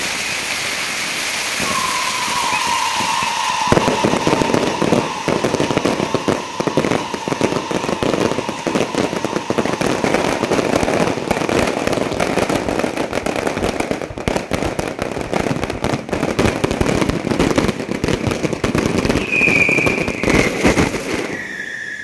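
Fireworks display: a dense, unbroken barrage of bangs and crackling, with whistling tones over it near the start and again near the end. The barrage stops suddenly about a second before the end.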